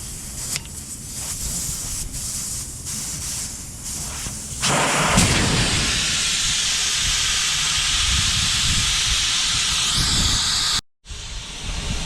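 Air rushing out of a semi truck tire through the valve stem with its core removed, the tire deflating. The hiss jumps to a loud, steady rush about four and a half seconds in and cuts off abruptly near the end.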